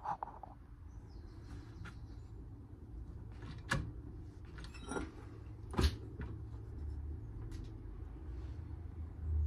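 A few short, sharp knocks and clicks, three main ones a second or so apart in the middle, over a low steady rumble.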